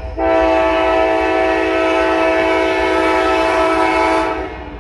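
Air horn of the lead CSX GE ES44AC-H freight locomotive sounding one long chord of several notes, ending about four and a half seconds in, over the low rumble of the approaching train.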